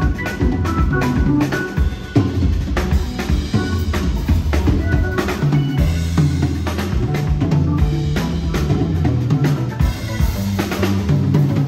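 Live rock band playing an instrumental passage with no singing. The drum kit is loudest, with bass drum and snare hits throughout, over a bass line and guitar.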